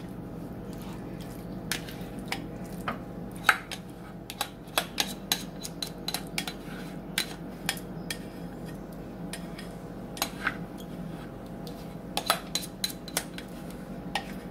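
A utensil scraping and knocking against a mixing bowl as a thick creamy chicken mixture is scooped out into a glass baking dish: irregular clicks and taps, over a steady low hum.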